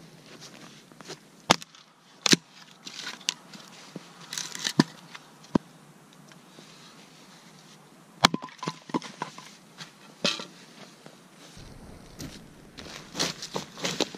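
An axe splitting firewood: several sharp cracks of the blade striking the log, spaced a second or more apart, with a denser run of crunching near the end.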